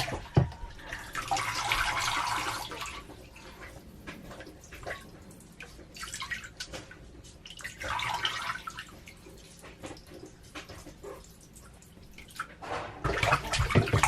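Bathwater splashing as a baby is bathed in a small tub, in uneven bursts with small knocks and drips between, louder near the end.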